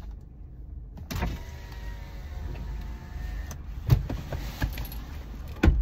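A small electric motor in a car whirs steadily for about two seconds, then two sharp knocks come as things are handled inside the car, the second near the end and the loudest.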